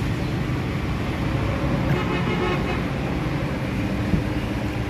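Steady rumble of road traffic, with a vehicle horn sounding briefly about two seconds in.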